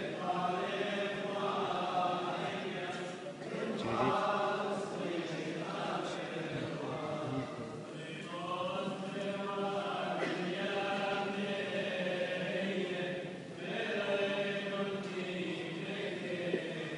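Group of voices singing a liturgical chant in a church, in long held phrases with short pauses between them.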